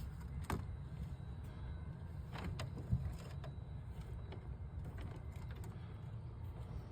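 Aircraft engine wiring and ignition leads being handled: a few light clicks and rustles over a steady low hum.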